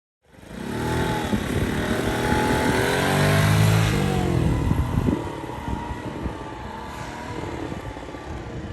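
Peace Sport 49cc scooter's small single-cylinder engine revving, its pitch gliding up and down and loudest about three and a half seconds in. After about five seconds it drops to a quieter, steadier running.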